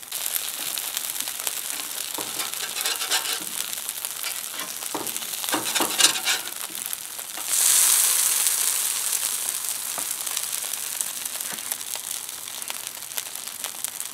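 Cornmeal johnnycakes frying in oil on a cast-iron griddle: a steady sizzle with scattered crackling pops. It turns suddenly louder and hissier about seven and a half seconds in, then slowly eases off.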